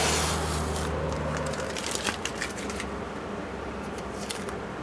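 Blue painter's tape being peeled off a freshly spray-painted truck body panel: a tearing rush at the start, then crackling and crinkling as the tape is pulled away and bunched in the hand.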